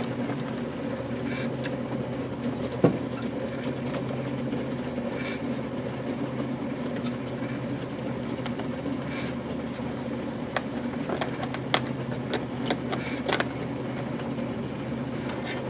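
Steady hum of O-scale toy train equipment running on the layout, with a few sharp clicks scattered through it, mostly in a cluster near the end as the derailed car is set back on the rails.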